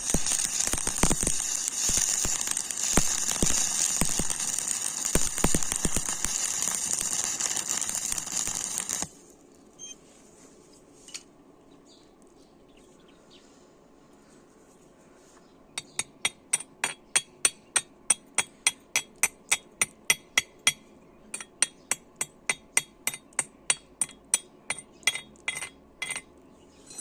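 Stick (arc) welding arc crackling and sizzling steadily, then cutting off suddenly about a third of the way in. After a quiet pause, a run of sharp metallic taps, about three a second, as a chipping hammer knocks the slag off the fresh weld.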